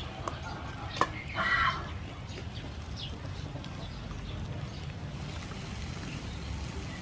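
A cooking utensil clinks once against the wire grill rack about a second in, and a brief pitched call follows just after. A steady low outdoor rumble runs underneath.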